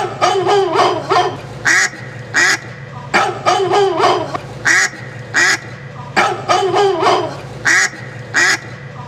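Music built on looped, duck-like quacking calls over a steady low drone. The phrase repeats about every three seconds: a cluster of bending calls, then two short sharp ones.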